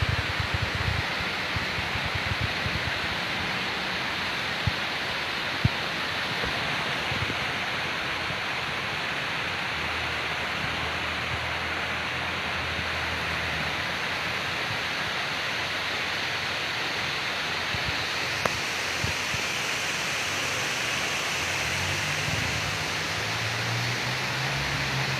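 Heavy rain falling steadily, a dense even hiss, with a few sharp taps from drops striking something nearby. A low rumble rises over the last few seconds.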